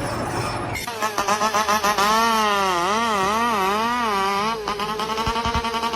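Background music: from about a second in, a single instrument melody line that wavers up and down in pitch, then settles into a held steady note. It is preceded by a brief noisy rush.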